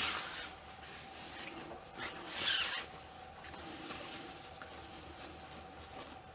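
Rustling and swishing of doll clothes being handled and fitted, with two louder swishes: one at the very start and one about two and a half seconds in.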